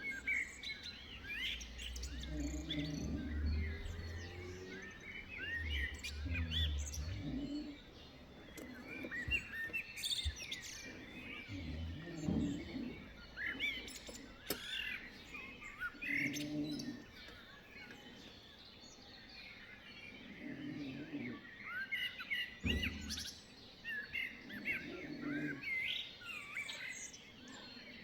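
Several small songbirds chirping and trilling, call after call, with a fainter low sound recurring about every four seconds underneath.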